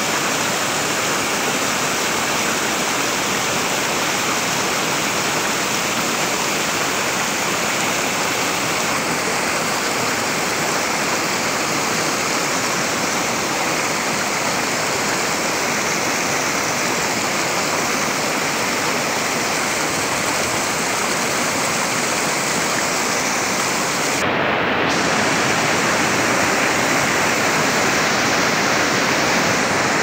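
Small waterfall splashing into a pool, a steady rush of water. About 24 seconds in it changes abruptly to the slightly louder rush of a river pouring over a weir and through rapids.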